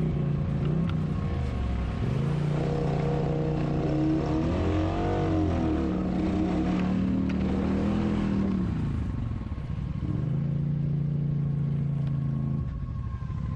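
ATV engine running under a rider, its pitch rising and falling through a rev in the middle, then holding steady before dropping off near the end.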